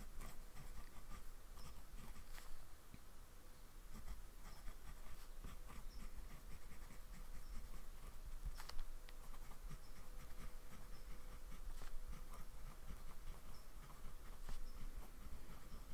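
TWSBI 580 Iris fountain pen with a medium nib writing by hand on paper: faint, irregular scratching strokes and small ticks as the letters are formed.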